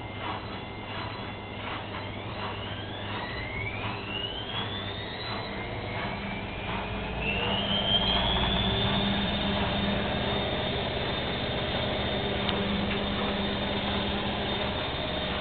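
Bauknecht washing machine accelerating into its spin: at first the turning drum gives a rhythmic beat of about two pulses a second. Then the motor's whine rises steeply in pitch twice and settles into a steady high whine as the drum reaches spin speed, getting louder.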